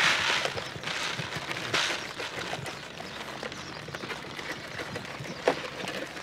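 Goats moving about and scuffling, with hoof steps and rustling. There are a few louder rustling bursts in the first two seconds, then scattered lighter scuffs and one sharp knock near the end.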